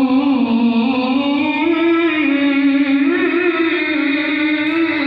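A male qori's amplified voice holding one long, ornamented note of Quran recitation (tilawah). The pitch wavers and climbs a little twice.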